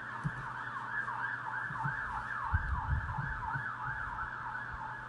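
Emergency vehicle siren in yelp mode: a wail sweeping rapidly up and down, about three times a second. A few low thumps come about halfway through.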